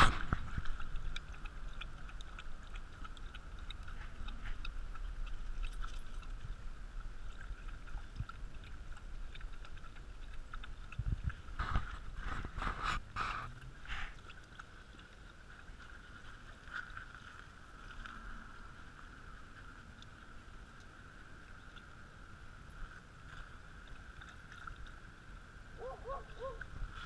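A dog lapping water from a stainless steel bowl: irregular wet laps and splashes, louder for a couple of seconds about halfway through.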